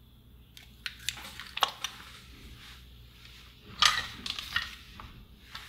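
Small clicks, taps and short scratchy rustles of hand tools being handled and set down on a workbench, with the loudest cluster about two-thirds of the way through.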